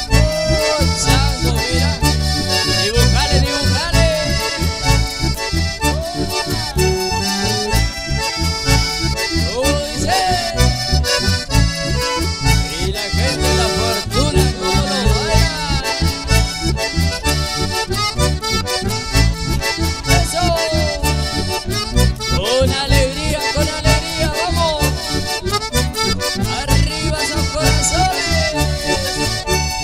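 Instrumental passage of live folk music: bandoneón and button accordion playing the melody over acoustic guitar, with a steady beat.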